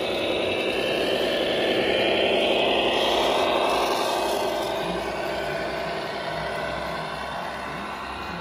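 Radio-controlled scale model truck running: a whir with rubbing, scraping noise that swells to its loudest about two to three seconds in, then slowly fades.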